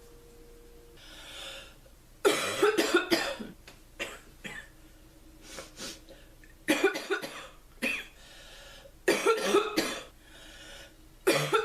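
A sick, congested girl coughing in four fits, each a quick run of several coughs, with breaths drawn in between. The cough is crackly and barking, a chest cold's cough that swings between wet and deep.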